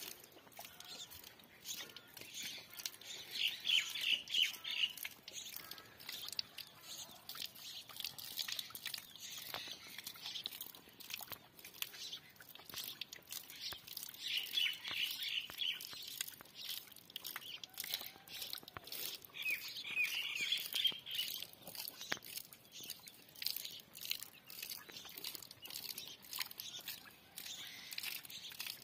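Small birds chirping in three short bursts of rapid high notes, over a continual patter of soft clicks and smacks.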